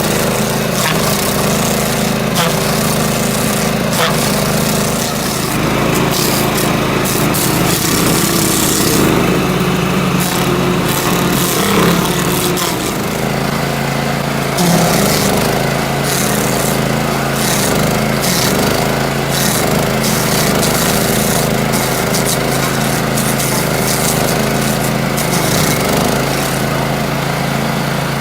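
Small engine of a self-propelled stump grinder running steadily under load while its cutter wheel grinds into a wooden stump, with irregular crackling and ticking from chips throughout.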